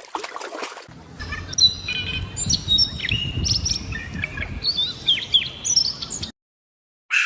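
Birds chirping: many short, quick chirps and twitters, overlapping, that stop abruptly about six seconds in, followed by one brief call near the end.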